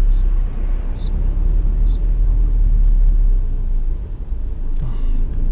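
Cabin noise of a Honda Civic Type R driving: a steady low rumble from engine and road, with a faint high whistle-like chirp repeating about once a second.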